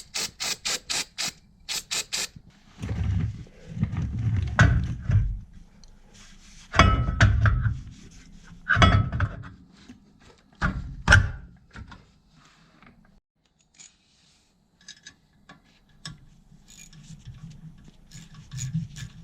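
Hand work on a car's rear brake: a quick run of about eight sharp clicks, then scattered knocks, thuds and rubbing as metal brake parts and tools are handled.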